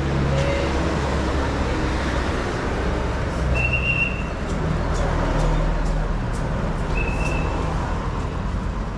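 Street traffic: engines of passing vehicles running over steady road noise, with two short high-pitched squeaks, one about three and a half seconds in and one about seven seconds in.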